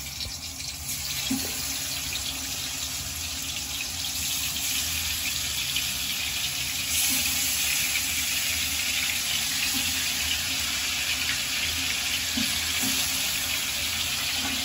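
Marinated chicken leg pieces sizzling in hot oil in a steel wok: a steady hiss that gets a little louder about seven seconds in, as more pieces go into the pan.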